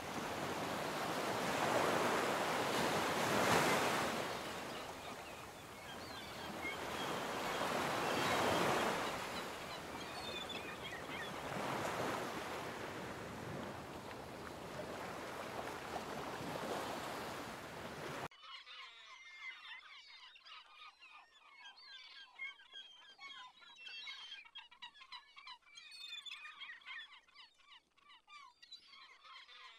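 Sea waves breaking on a shore, the surf swelling and falling back every few seconds. About two-thirds of the way through, the sound cuts suddenly to a flock of birds calling, many short calls overlapping.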